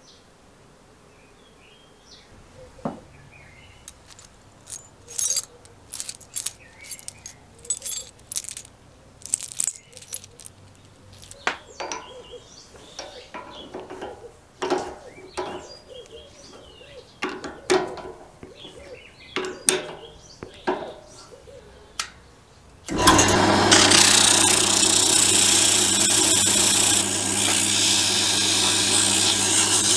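Scattered metal clicks and clinks as a drill chuck is tightened with a chuck key around a rod. About two-thirds of the way through, a drill press switches on suddenly and runs steadily with a low hum, sandpaper hissing against the spinning rod.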